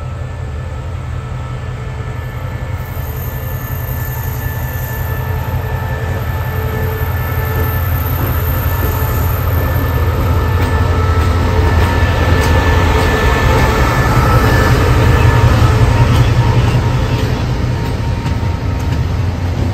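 Express train 84, hauled by a QSY diesel-electric locomotive, pulling out of the station: a steady low diesel engine hum with faint whining tones, growing louder over about fifteen seconds as the train gets under way, then easing slightly.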